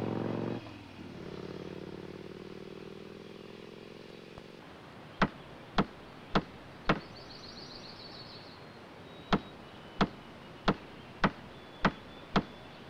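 A motorcycle engine running, cut off sharply about half a second in, then a fainter engine hum fading away. After that come hammer blows on wood: four about half a second apart, a short pause, then a steady run of blows.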